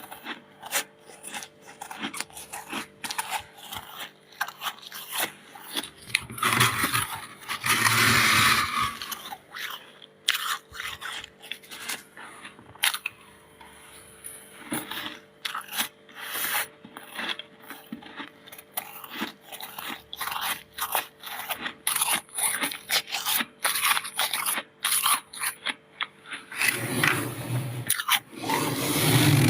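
Freezer frost being bitten and chewed: a rapid, continuous run of crisp crunches, with heavier, fuller crunching about seven seconds in and again near the end.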